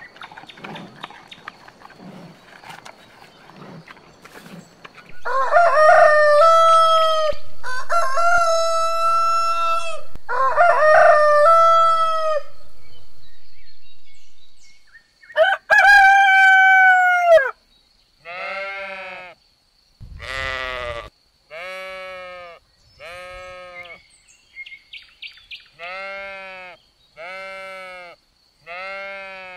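Faint rustling for the first few seconds, then a rooster crowing: three long crows close together and a fourth a few seconds later. After that a sheep bleats about nine times in short, evenly spaced calls.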